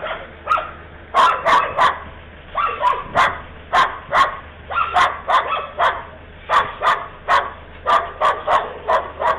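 A dog barking over and over, short sharp barks in quick runs of two to four, about two or three a second.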